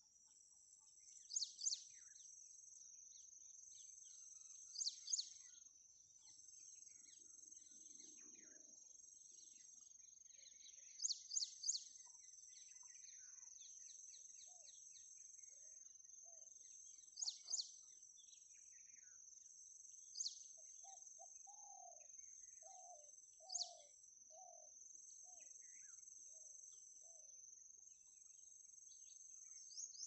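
Steady high-pitched insect drone, with short, sharp bird chirps breaking in every few seconds, mostly in twos or threes. In the second half a bird gives a run of about eight lower, shorter call notes.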